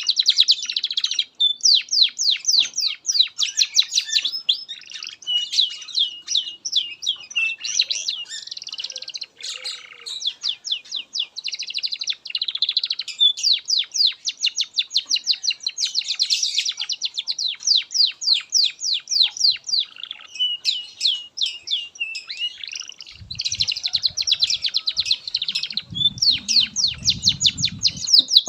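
Domestic canary singing a long, unbroken song of rapid trills and fast repeated chirps, with only brief pauses between phrases. A faint low rumble sits underneath near the end.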